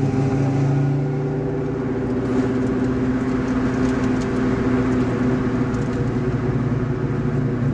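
Car engine and road noise heard from inside the cabin while driving, a steady drone.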